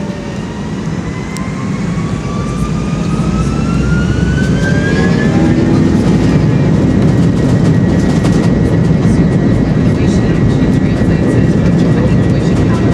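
Airliner's jet engines spooling up to takeoff thrust, heard inside the cabin: a rising whine over a loud roar that climbs for about six seconds, then holds steady.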